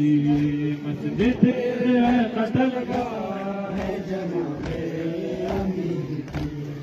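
A man chanting a noha, a Shia mourning lament for Imam Ali: he holds one long note for about a second, then moves on in a wavering melody. A few sharp knocks sound beneath the voice.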